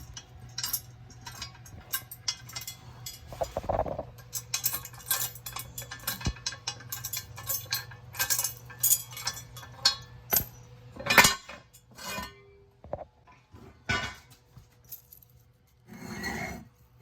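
Irregular metallic clinks and clatter of hand tools and hardware being handled while exhaust headers are fitted to a car, over a low steady hum that stops about eleven seconds in.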